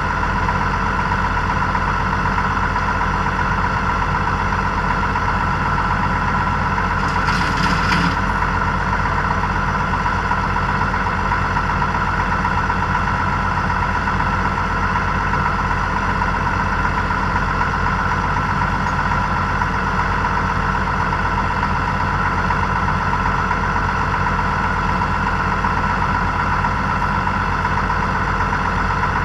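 Tractor diesel engine idling steadily, with a short burst of hiss about seven seconds in.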